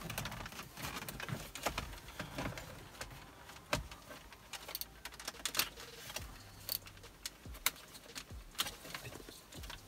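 Plastic dashboard trim surround around the climate control panel being worked loose and pulled free by hand, giving scattered clicks and knocks of plastic clips and trim.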